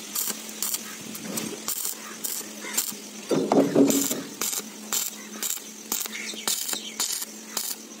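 Stick (arc) welder tacking a seam on a concrete mixer drum's steel shell: short, irregular crackles as the arc is struck again and again, over a steady faint hum. A denser clatter of metal comes about halfway through.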